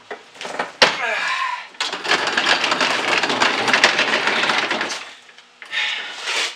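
Wooden RCA television cabinet, picture tube still mounted inside, being tipped over onto its face on a padded furniture dolly. There is a sharp knock about a second in, then about three seconds of dense scraping and rattling of wood, and a shorter burst near the end.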